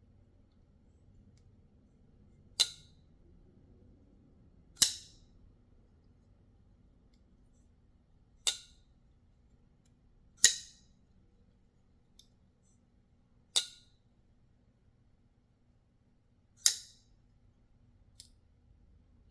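Sharp metallic snaps of a VK-Frok titanium-handled folding knife's blade being flicked open and locking. There are six loud snaps every two to three seconds, with two faint clicks among them.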